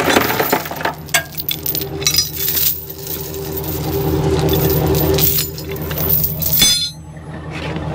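Steel tow chain clinking and rattling as it is pulled up and hooked to a wrecker's sling, over a steady low hum.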